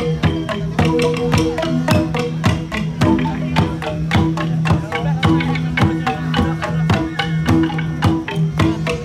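Central Highlands gong ensemble (cồng chiêng) playing: several pitched gongs struck in a fast, interlocking rhythm, their tones ringing on between strikes.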